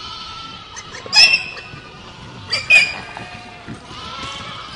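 Goats bleating: two short, high calls about a second and a half apart.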